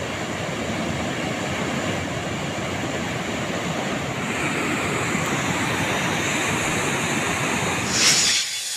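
Floodwater released through a dam's spillway gates, pouring down in a steady, dense rush of water. Near the end a brief high hiss cuts in over it.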